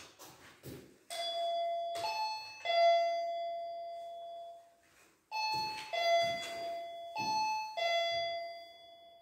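Wireless motion-detector alarm chiming a two-note ding-dong, higher note then lower, several times in a row as it is set off. Soft knocks from handling sound under the chimes.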